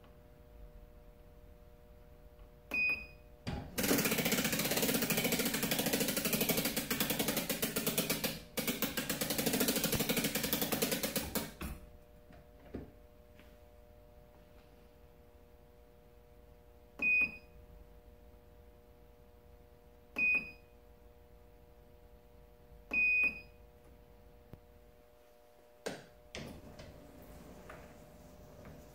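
A digital bow scale's keypad beeps four times, short and high-pitched, as its buttons are pressed. Between the first two beeps a draw-board mechanism makes a loud, fast mechanical rattle for about eight seconds, broken once halfway, as the bow is drawn back.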